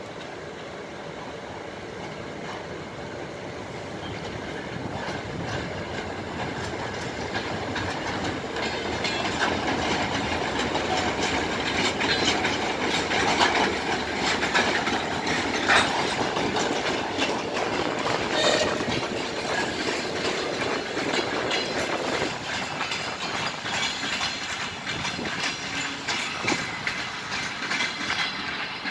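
Passenger train hauled by a VL82M electric locomotive pulling out of the station, its wheels clacking over rail joints, growing louder over the first dozen seconds as it comes close and then running on steadily as the coaches roll past.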